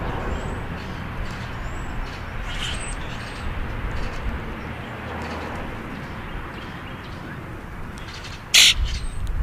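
Grackles at a seed patch: several faint, brief, high chirps over a steady low background rumble, and one short, loud, harsh rasp near the end that stands out as the loudest sound.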